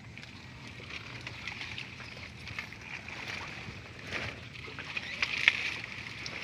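Water hyacinth being handled from a small boat: leaves and stems rustle and crackle and water sloshes, with a louder crackle about five seconds in. A steady high hiss runs underneath.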